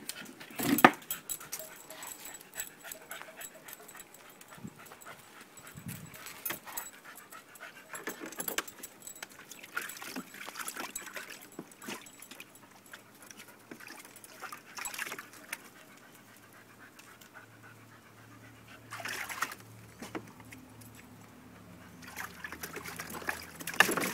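A dog splashing and wading in water in a plastic paddling pool, with scattered small splashes and several louder sudden splashes, the last as it clambers out near the end.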